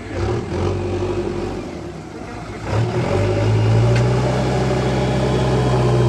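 JCB 3DX backhoe loader's diesel engine running, revving up briefly near the start, then rising again about three seconds in and holding at high revs as the loader bucket is driven into a pile of soil.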